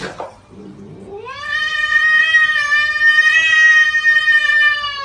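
A domestic cat giving one long drawn-out yowl that rises at the start, holds steady and slides down in pitch near the end.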